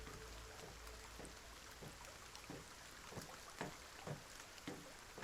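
Light rain: a faint steady hiss with scattered drops tapping at irregular intervals.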